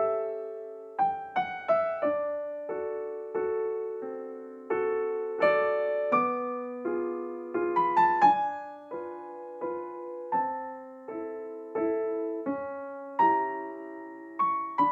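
Background piano music: a gentle melody of struck notes, each fading after it is played, a little under two notes a second.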